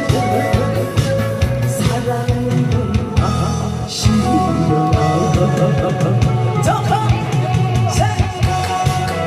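A song performed live: a voice singing a melody over a steady beat of drums and guitar accompaniment.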